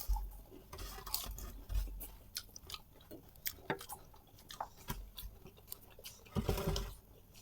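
Close-up chewing and crunching of panipuri, the crisp hollow puri shells breaking in the mouth, heard as scattered short crackles and clicks with a louder stretch about six and a half seconds in.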